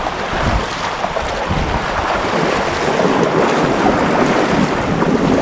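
Sea water washing and splashing around a kayak being paddled up a swell, with wind buffeting the microphone, heaviest in gusts near the start.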